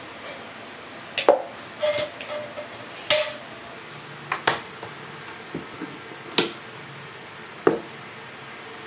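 Half a dozen sharp knocks and clinks, irregularly spaced, some with a short ring, as a small glass-and-plastic French press is set down on a table and its lid and plunger are handled.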